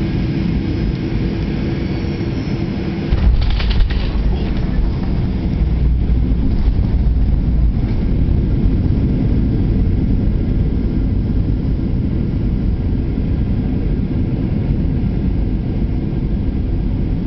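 Cabin noise of a Ryanair Boeing 737-800 landing: steady engine and airflow noise, then about three seconds in the wheels touch down with a couple of knocks, and a heavier low rumble from the rollout on the runway carries on.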